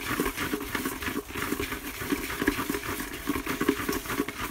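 Folded paper name slips rustling and crinkling in a plastic bucket as a hand rummages through them, a continuous irregular crackle.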